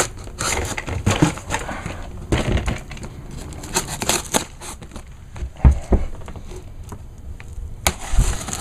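A shipping package being opened by hand: irregular crinkling, rustling and tearing of packaging, with a few sharp knocks and dull thumps.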